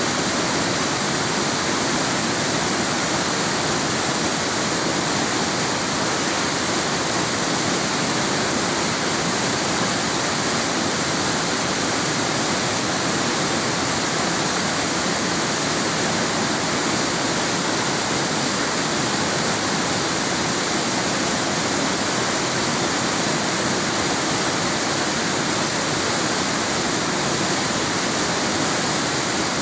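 Waterfall: water falling and rushing in a steady roar of even, unbroken noise.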